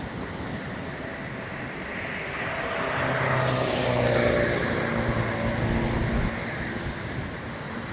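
A motor vehicle passes by: its engine grows louder to a peak about four seconds in, then drops slightly in pitch and fades as it moves away, over a steady background hum of traffic.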